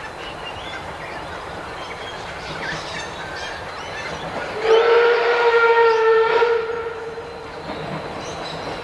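Steam whistle of locomotive C17 967 giving one blast of about two seconds, about five seconds in, over the steady noise of the running train.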